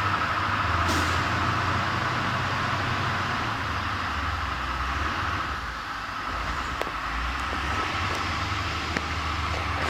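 Steady low engine-like machine drone with a thin steady whine above it, a brief sharp hiss about a second in and a few light clicks later.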